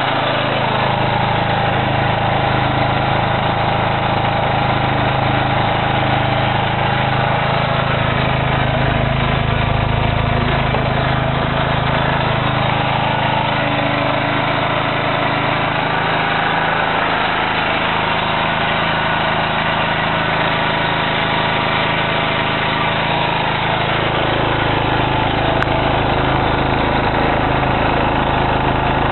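Generator set's engine running steadily on wood gas.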